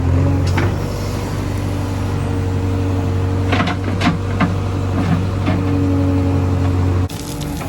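Diesel engine of a backhoe loader or tractor running steadily under load during soil loading, with a handful of knocks in the middle, typical of the bucket working and soil and stones landing. The engine sound drops abruptly near the end.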